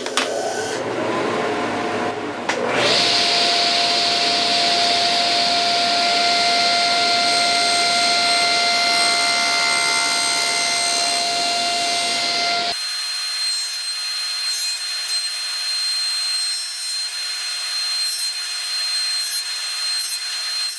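Table saw running, its blade making repeated shallow passes to nibble out a notch in a small wooden strip. About thirteen seconds in, the deep part of the sound drops out abruptly and a thinner whine carries on.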